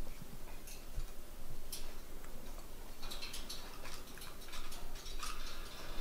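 Light, irregular clicks and taps of a parrot moving about and handling food in a wire cage.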